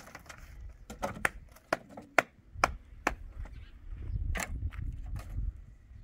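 A series of irregular sharp clicks and knocks, about ten in a few seconds, with a low rumble in the second half.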